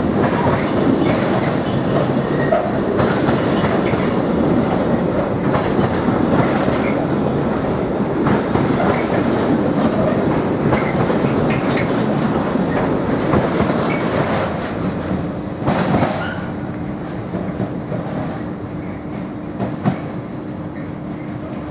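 A train passing, its wheels clicking over the rail joints, with a sharp knock about two-thirds of the way through. The noise then eases, leaving a steady low hum.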